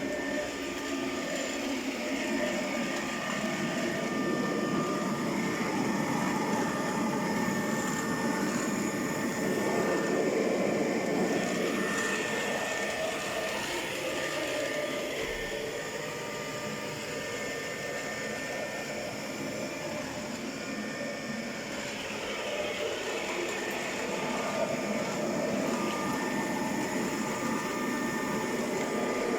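iCLEBO O5 WiFi robot vacuum running, its suction motor giving a steady rushing noise with a thin whine over it, swelling and easing a little as it moves about.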